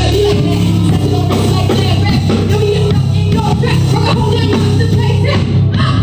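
Live band playing a song: drum kit and electric bass keep a steady groove, with guitar, and a singer's voice coming through at times.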